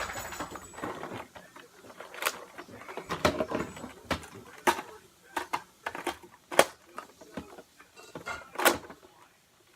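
Handling and dry-priming of plastic Nerf blasters: a run of sharp plastic clicks and clacks, four of them louder than the rest, among softer rattling and shuffling.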